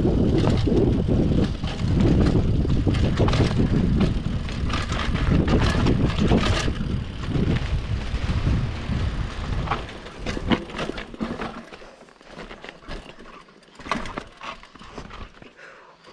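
Mountain bike descending a rough trail: wind buffets the microphone under a steady rumble and rattle of the bike over rocks and roots. About ten seconds in the bike slows, the rumble drops away, and only scattered clicks and knocks are left.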